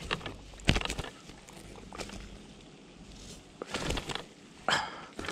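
A few short, irregular knocks and rustles from handling a freshly netted carp in the landing net.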